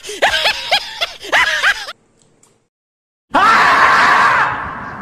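Women laughing in quick, high-pitched rhythmic bursts, breaking off abruptly about two seconds in. After a short silence, a loud editing sound effect comes in about three seconds in and fades away.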